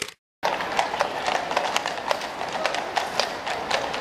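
Horses' hooves clip-clopping on a paved road, many irregular strikes from several horses passing, over steady background noise. A brief gap of silence right at the start.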